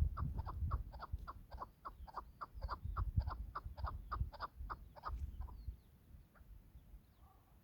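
Chukar partridge calling: a long run of short, even 'chuk' notes, about four or five a second, that stops about five and a half seconds in, followed by one lone note. A low rumble runs beneath the calls.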